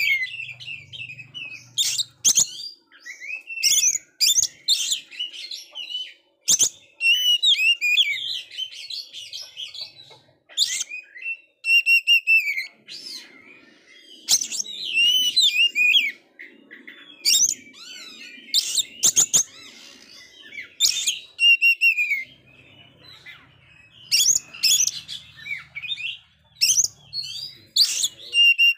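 Male oriental magpie-robin (kacer) singing persistently: varied phrases of clear gliding whistles and rapid chirps, broken by short pauses, with a few sharp clicks among them.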